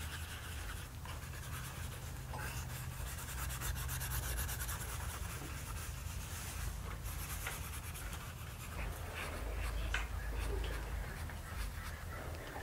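A graphite pencil scratching on paper backed by a clipboard in quick, repeated shading strokes, over a low steady hum.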